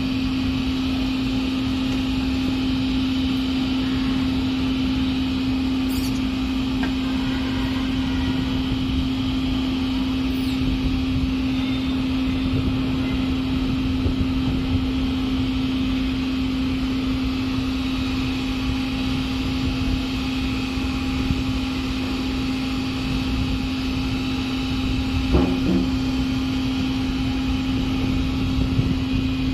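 Steady hum of running machinery: a constant low tone over an even rushing noise, unchanging throughout.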